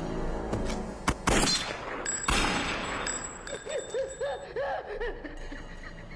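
Film sound effects: several sharp hits within the first second and a half, then a louder crash about two seconds in. After it come a run of short cries that rise and fall.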